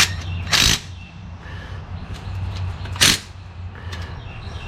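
Small impact gun fired in two short bursts, about two and a half seconds apart, snugging down the bolts of plastic LS lifter trays, under a steady low hum.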